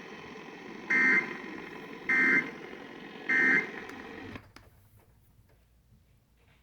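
Emergency Alert System end-of-message code: three short bursts of digital data tones about a second apart, over radio hiss. The broadcast audio then drops to a far lower level about four seconds in.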